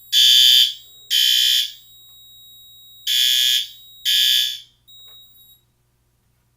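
Fire alarm horns sounding the temporal-three evacuation pattern: three buzzy half-second blasts about a second apart, a pause, then two more before the alarm cuts off mid-cycle about four and a half seconds in. A fainter steady high tone runs under the blasts and stops about a second later. The alarm was set off by a smoke detector test.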